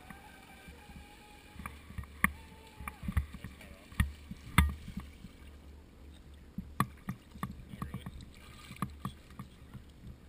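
Faint whine of the Proboat Impulse 31's brushless electric motor as the RC boat comes in: it rises, holds, then stops about three seconds in. Scattered knocks and bumps follow as the boat's hull is handled at the water's edge and set down.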